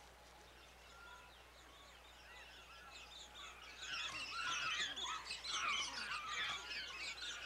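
Cartoon jungle sound effect of many high, short, overlapping animal chirps and squeaks, faint at first and growing louder from about four seconds in.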